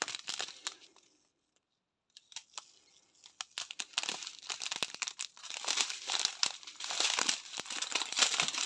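Small clear plastic bags of diamond-painting drills crinkling as they are handled. The crinkling stops for about a second, then resumes densely from about two seconds in.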